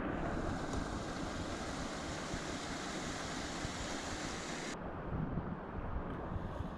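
Rushing whitewater of a river rapid, a steady wash of noise; about five seconds in the high hiss drops away abruptly and a lower, duller rush carries on.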